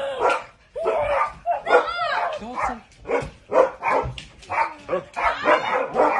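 A dog barking and yipping excitedly, with a quick run of barks in the second half.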